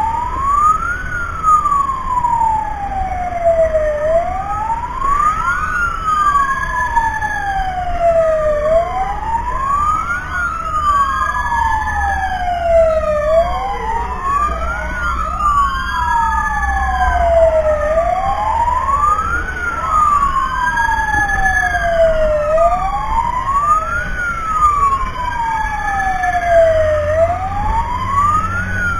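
Fire engine sirens wailing: two of them out of step, each rising and falling slowly about every four to five seconds, over a low rumble.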